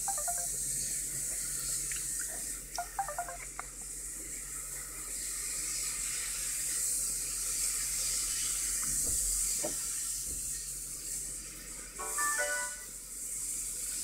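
Samsung SGH-U600 mobile phone over a steady hiss: a few faint clicks in the first seconds, then about twelve seconds in a quick run of short electronic beep notes, its key tones as the main menu is opened.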